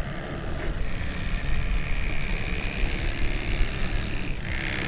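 Electric fillet knife running steadily with a whirring motor as it cuts the ribs from a rock hind fillet, over a constant low rumble of wind.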